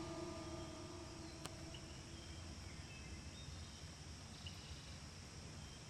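Faint outdoor ambience: a low steady rumble with a few brief, faint high chirps scattered through it and a single sharp click about one and a half seconds in.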